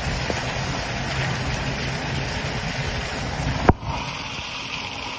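Steady wind and rain noise over a low engine hum from a vehicle. A single sharp knock comes about three and a half seconds in, and the sound is thinner after it.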